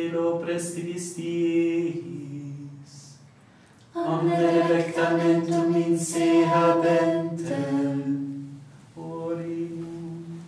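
Unaccompanied liturgical chant sung by a man's voice, in three phrases with short breaks between them.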